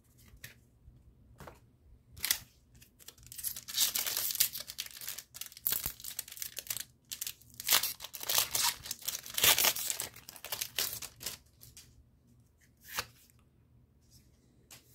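Pokémon TCG Lost Origin booster pack's foil wrapper being torn open and crinkled, a string of tearing and rustling sounds from about two seconds in to about eleven seconds in. A single short click follows about thirteen seconds in.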